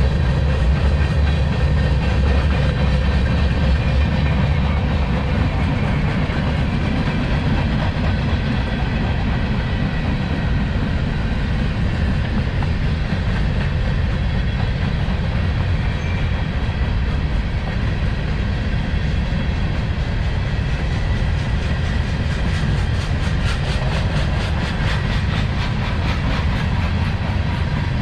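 Freight train rolling past: a steady heavy rumble of wheels on rail, with a quick run of rhythmic clacking over rail joints near the end.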